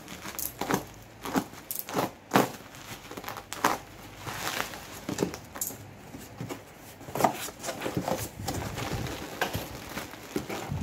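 Parcel packaging being torn open by hand: bubble wrap and packing tape ripped off, then tape on a cardboard box cut and the flaps opened, and near the end a plastic bag crinkled, heard as a string of irregular rips, rustles and crackles.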